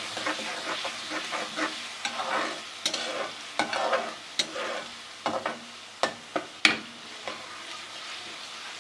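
Onions and ginger-garlic paste frying in hot ghee, sizzling steadily while a spoon stirs them and clicks and scrapes against the pan. The sizzle slowly dies down.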